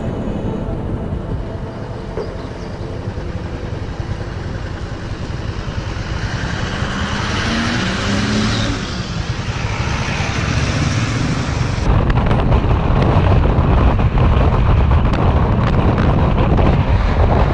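A vehicle driving along a highway: steady engine and road noise. A large truck passes close by, swelling and fading between about six and eleven seconds in. The sound turns louder and rougher from about twelve seconds in.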